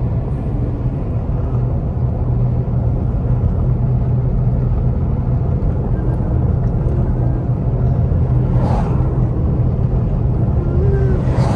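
Steady road and engine noise heard from inside a moving car's cabin: a low drone with tyre rumble. Two short whooshes of noise rise over it, about nine and eleven and a half seconds in.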